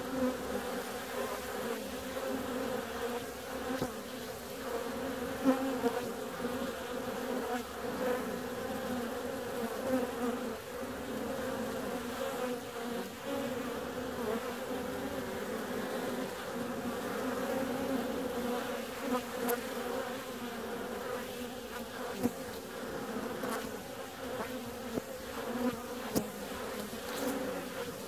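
Many honeybees buzzing steadily at a busy hive entrance, a continuous hum with brief louder swells now and then as single bees fly close past.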